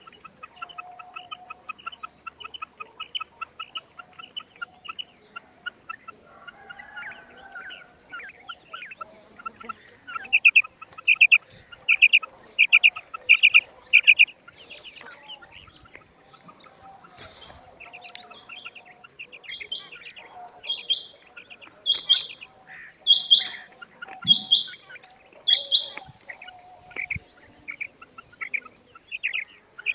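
Female quail calling: a fast, faint run of short notes, then louder short calls repeated about once a second. The calls are loudest in the second half.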